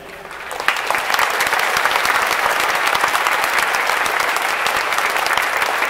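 Stadium crowd applauding, swelling up about half a second in and then holding steady.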